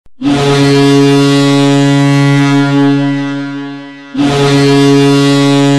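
Two long, steady blasts of a deep horn-like tone, each about four seconds, the second starting about four seconds in.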